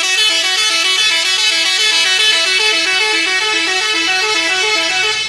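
Bus 'telolet' musical air horn playing a quick melody of short stepped notes, about five a second, with several horn trumpets sounding together. It starts and stops abruptly.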